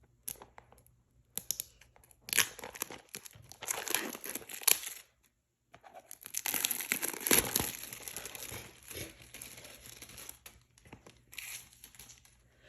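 Packaging crinkling and tearing as a cube box is pulled open, in irregular bursts with a brief pause about five seconds in, then a longer stretch of crinkling.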